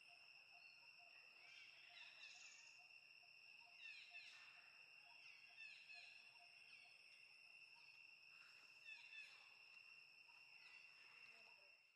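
Faint outdoor ambience: a steady, high insect drone at two pitches, with scattered short, falling chirping calls over it.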